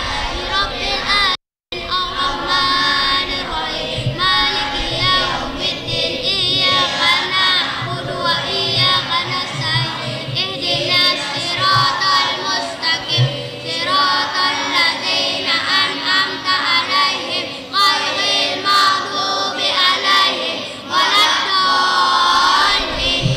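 Many children's voices chanting together in unison, the devotional singing of a large group. The sound drops out completely for a moment about a second and a half in.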